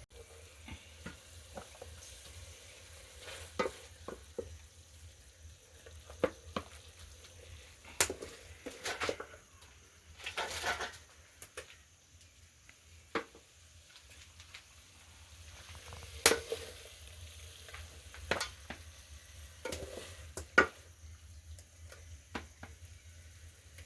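Kitchen utensils working on pots and dishes: a spoon scraping, clinking and knocking at irregular intervals, with a longer scrape about ten seconds in.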